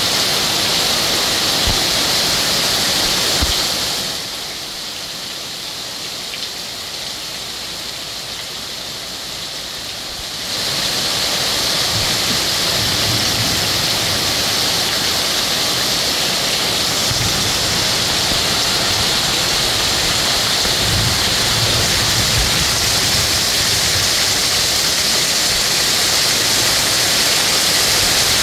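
Heavy rain pouring down in a dense, steady hiss. It eases for several seconds about four seconds in, then comes back just as hard.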